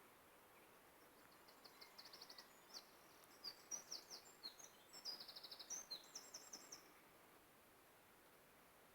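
Bats giving faint, high-pitched chirps in quick rattling series. They start about a second and a half in and stop about seven seconds in.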